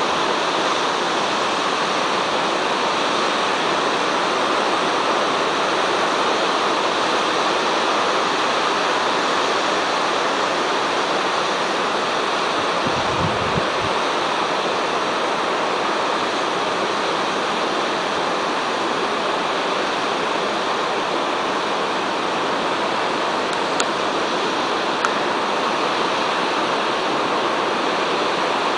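Steady rushing hiss of distant ocean surf, constant in level throughout.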